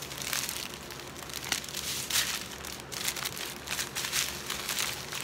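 Clear cellophane gift wrap crinkling and rustling in irregular bursts as it is handled and crumpled.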